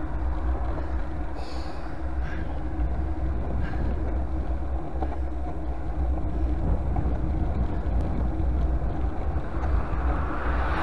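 Wind buffeting the microphone of a bicycle-mounted camera while riding: a steady low rumble with a hiss of air and road noise over it.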